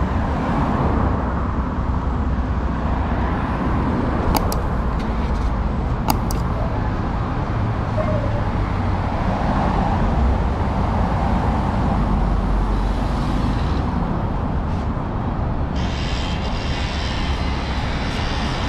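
City street ambience dominated by road traffic running past steadily, with a couple of sharp clicks about four and six seconds in and a brighter hiss joining near the end.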